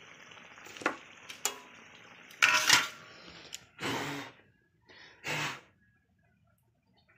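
Metal pots and utensils clinking and clattering on a gas stove, with a loud clatter about halfway through, over a steady cooking hiss that stops soon after. Two brief, duller noises follow near the end.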